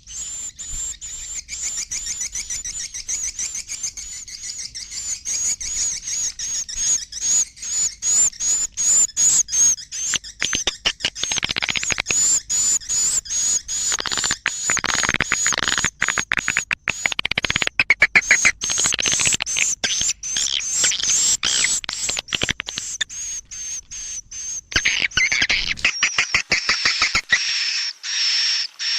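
Edible-nest swiftlet roosting calls: a rapid, high-pitched chattering of short chirps repeating many times a second. This is the 'inap' lure sound played in swiftlet houses to draw the birds in to roost.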